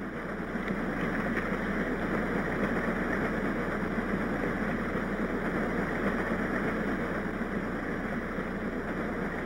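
Steady rumbling ride noise from inside a moving vehicle: an even rushing sound with no distinct engine note or voices.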